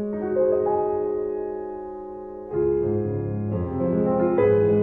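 Slow piano background music: held chords, with a lower part coming in about halfway and new notes added near the end.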